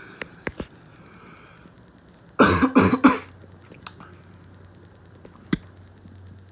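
A person coughs several times in quick succession about two and a half seconds in, over the steady low hum of a ceiling fan running on high. A few sharp clicks come before and after the coughs.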